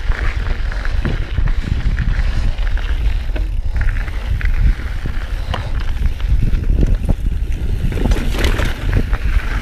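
Mountain bike riding over a rough dirt trail: wind buffeting the microphone with a steady low rumble, and tyres on dirt and rock with frequent rattling clicks and knocks from the bike.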